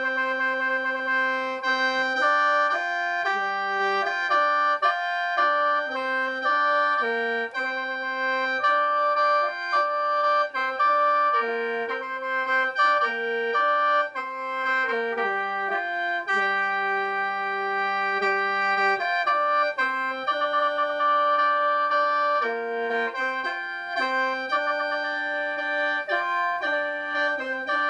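Khaen, the Lao bamboo free-reed mouth organ, played solo in lai sao mode. A melody moves in short steps over drone notes held steadily throughout.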